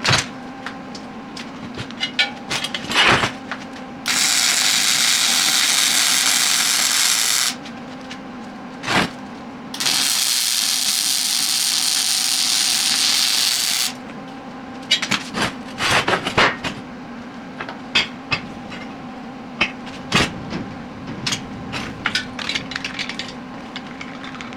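A power tool runs twice, each time for about four seconds, driving bolts while the cart is put together. Between and around the runs, metal parts clank and click as they are handled.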